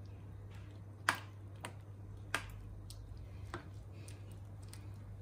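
A metal spoon stirring cubes of watermelon rind in sugar syrup in a saucepan, clicking sharply against the pan about five or six times, over a steady low hum.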